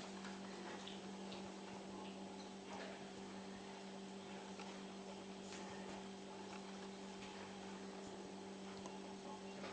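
Steady low electrical hum, with a few faint soft clicks scattered through it.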